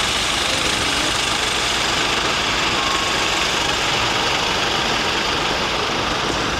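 Steady, unbroken rush of aircraft turbine noise, such as a parked airliner's auxiliary power unit or engines, heavy in the upper hiss.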